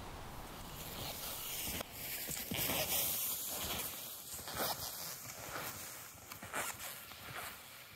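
A steady hiss for the first couple of seconds, then OAC KAR 147 skin-based skis scraping and crunching over frozen snow crust, about one stride every three-quarters of a second, with ski poles planting and the bindings squeaking. The bindings are worn and badly in need of maintenance.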